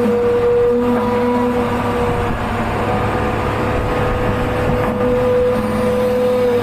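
Excavator's diesel engine running steadily under load, with a steady high whine held over the engine rumble.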